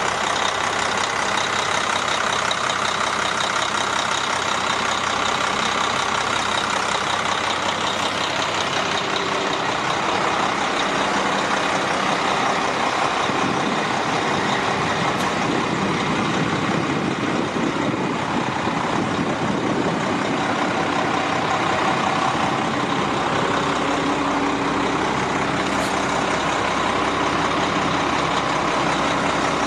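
Cummins ISM diesel engine of a 2012 Indiana Phoenix concrete mixer truck running steadily.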